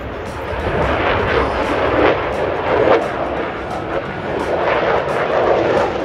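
Fighter jet passing overhead, its engines sounding a loud, rough roar with a crackle that swells about half a second in and stays loud.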